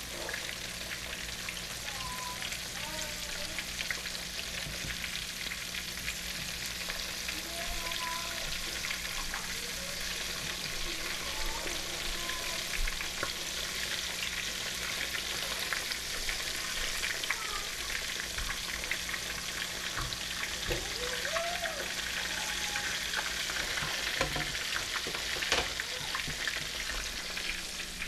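Breaded fish fillets of freshwater drum and catfish sizzling steadily as they fry, just after being turned.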